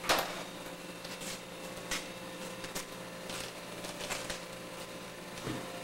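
Scattered rustles and scuffs as a bear hide is handled and shifted on a floor, with a louder scuff at the very start, over a faint steady hum.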